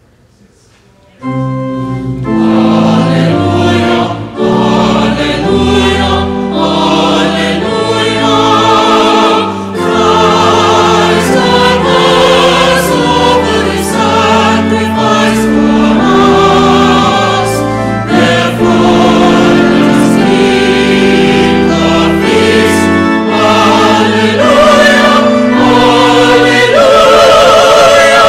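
Mixed church choir singing with organ accompaniment: the organ comes in with held chords about a second in and the choir sings over it, the voices growing fuller with wide vibrato near the end.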